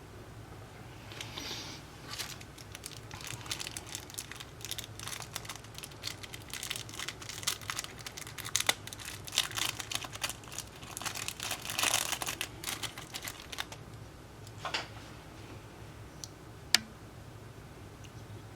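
Close-up repair handling on an Apple Watch Series 1: a dense run of small clicks, scraping and crinkling as tools and parts are worked during battery replacement, then a short scrape and one sharp click near the end.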